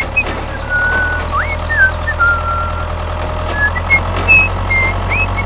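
Steady low engine hum, as of a small vehicle running, with short high whistling chirps and glides scattered over it.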